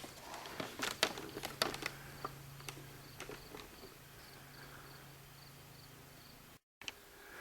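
Sharp plastic clicks of buttons and controls on a 1986 Magnavox VHS camcorder being pressed and handled, over a steady low hum. A faint high-pitched pulsing chirp, about three a second, runs for a couple of seconds in the middle.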